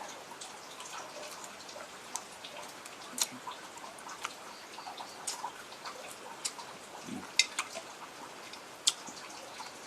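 Close-miked eating sounds: chewing quail meat with moist mouth clicks and smacks, irregular sharp clicks scattered throughout, the loudest about seven and a half seconds in.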